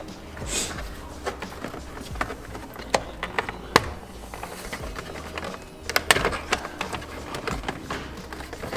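Plastic steering column shroud being worked loose by hand: a string of sharp clicks and knocks as the trim unsnaps and is handled, with the loudest cluster about six seconds in. Background music plays underneath.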